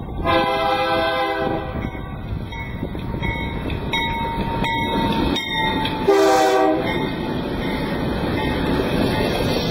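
Air horn of a BNSF GE diesel locomotive sounding a chord blast of just over a second, then a shorter blast about six seconds in, as the lead unit passes close by at about 30 mph. The rumble of the engines and the wheels on the rails runs beneath.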